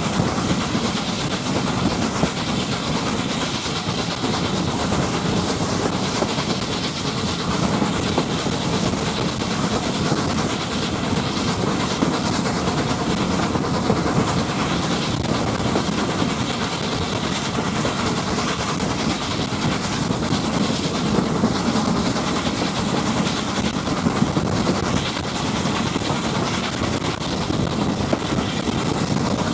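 Steam train hauled by LNER A4 Pacific 4464 Bittern running at speed, heard from the carriage directly behind the locomotive: a steady, unbroken noise of the train on the rails.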